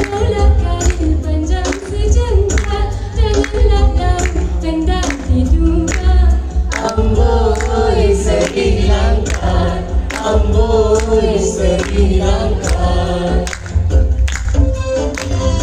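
Live singing with music, played loud through a hall's sound system over a strong bass line and a steady beat.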